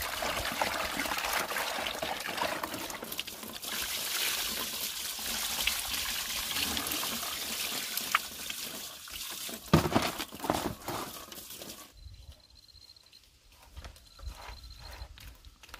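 A thin stream of running water pours into a plastic basin while crabs are rinsed and stirred by hand in it. About ten seconds in, the water is tipped out of the basin with a splash onto bamboo slats, and the rest is quieter, with soft footsteps and a faint high repeated chirp.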